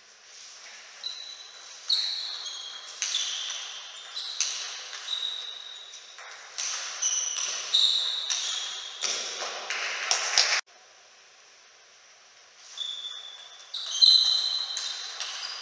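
Plastic table tennis ball struck back and forth in a fast rally: sharp pocks off the rackets and the Tibhar table, each ringing briefly, about one to two hits a second. The hits stop abruptly about two-thirds of the way through, and after a short gap a new rally starts.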